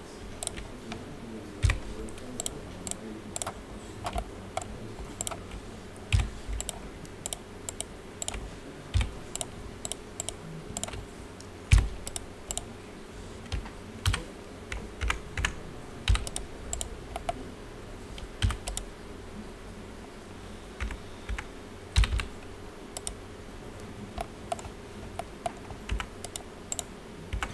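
Keys on a computer keyboard pressed irregularly, one at a time, some strokes louder with a dull thud, over a faint steady hum.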